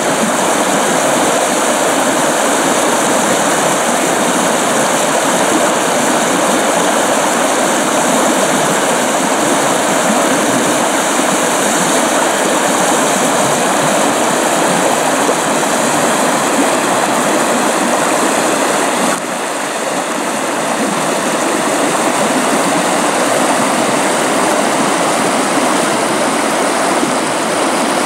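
Fast river running over shallows with slush ice drifting on it as it begins to freeze up: a steady, loud rush of water, dipping slightly about two-thirds of the way through.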